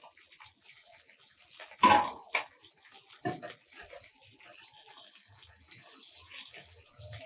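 Fish frying in hot mustard oil: a steady, light sizzle and crackle in the pan. A sharp clack comes about two seconds in, with a couple of smaller knocks after it, as a metal spatula hits the pan while lifting the fried fish out.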